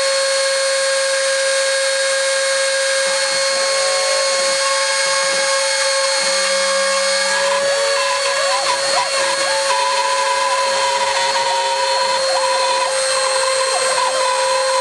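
Emco Unimat 3 CNC mini machine milling: a steady motor whine runs throughout, and from about eight seconds in, extra wavering tones come and go above it.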